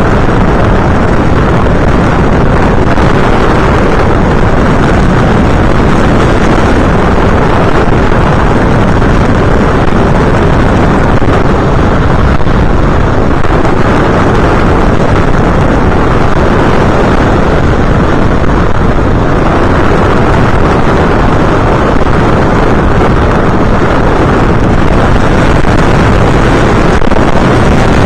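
Loud, steady rush of airflow and motor noise picked up by the onboard camera microphone of an FPV aircraft in flight, with wind buffeting the microphone.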